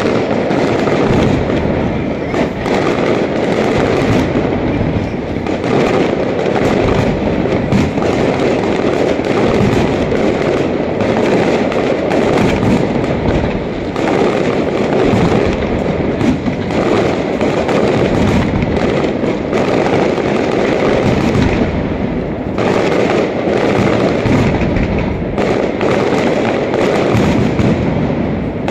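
Aerial fireworks barrage: many shells launching and bursting in quick succession, a continuous rapid volley of bangs and crackling with no pause.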